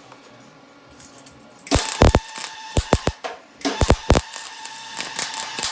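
Wire-feed welder arc on thin, worn snowmobile ski steel, running in several short bursts from just under two seconds in, with a steady hum under the crackle.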